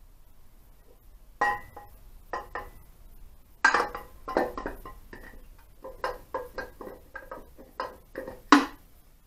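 Metal engine parts clinking and knocking as an Ariel motorcycle's alloy crankcase half is handled and offered up over the crankshaft: a run of sharp clinks with a short ring, starting about a second and a half in, irregularly spaced, the loudest near the end.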